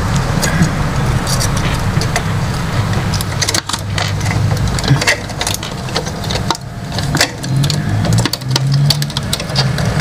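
Steady rumble of road traffic from a busy street, with frequent small clicks and rattles of plastic printer parts being handled by hand.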